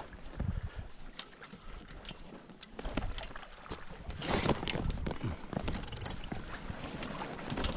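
Wind and water noise aboard a small sailboat, with light knocks and rustles as the outhaul line is worked at the boom. A brief, loud, high-pitched squeal comes about six seconds in.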